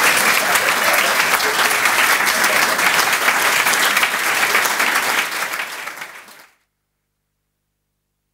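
Audience applauding with dense, steady clapping, which fades and then cuts off into silence about six and a half seconds in.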